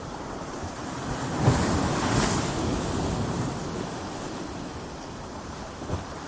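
Ocean waves breaking on a beach: a wave crashes about a second and a half in and its wash hisses and fades away, with another brief thud near the end. Wind buffets the microphone throughout.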